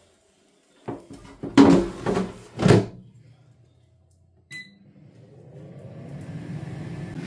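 Cosori dual-basket air fryer: the basket drawer is slid in and shut with a rattle and two clunks. A single short beep follows as a control button is pressed, and the fan starts up, its whirr growing steadily louder.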